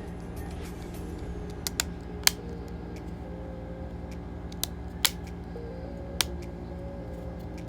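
Background music with about six sharp plastic clicks scattered through the middle, the loudest two near two and five seconds in, from an ASUS ROG Phone and its case being handled and fitted.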